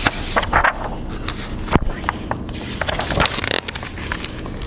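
Pages of a hardcover picture book being opened and turned by hand: a run of irregular paper rustles and soft taps.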